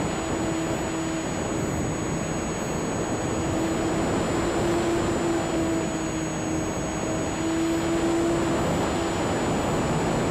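Electric motor and propeller of an E-flite Sukhoi RC aerobatic plane running in flight, a steady hum whose pitch wavers slightly with throttle, under a rush of wind noise, with a faint high electronic whine.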